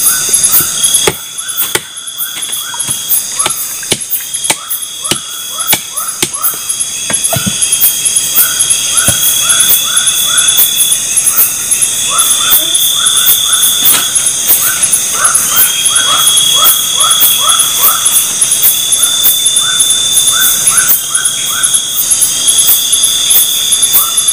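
Night chorus of crickets and other insects: a dense, steady high trilling with a pulsing buzz, a higher tone that swells every couple of seconds, and repeated runs of short chirps. A few sharp clicks and knocks in the first several seconds.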